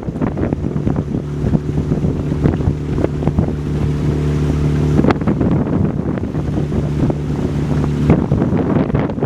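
Motorboat engine running at a steady pitch, dropping away about eight seconds in, under constant wind buffeting the microphone and water rushing past the hull.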